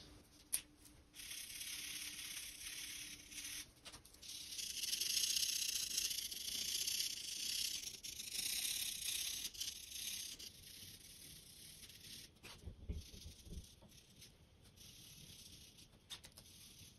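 Edding permanent marker being rubbed back and forth over a lampshade's inner ring to colour it black: a scratchy hiss that swells and fades, strongest in the middle. A few soft knocks come near the end.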